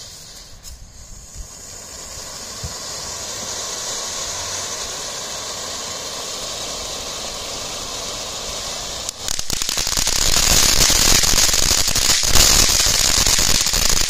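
TNT Magic Seashell firework fountain burning, with a steady hiss of spraying sparks that grows louder over the first few seconds. About nine seconds in it breaks into a much louder, dense crackling of popping sparks.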